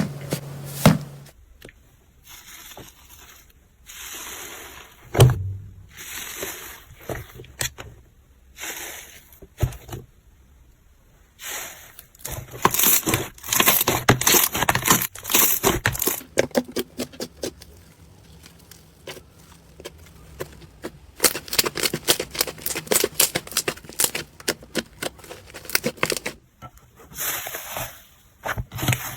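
Slime being squeezed and pressed by hands: irregular squishing with runs of small crackles and pops, densest in the second half.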